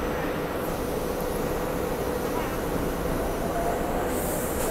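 SEPTA Regional Rail electric train running steadily: an even rumble with a faint constant hum, joined near the end by a second, higher whine.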